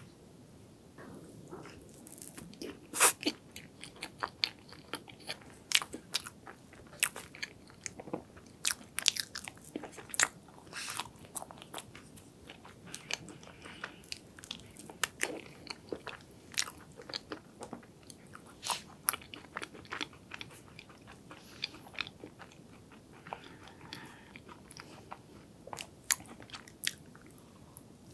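A person eating soft hazelnut chocolate cake close to the microphone: chewing with many irregular, sharp, sticky mouth clicks.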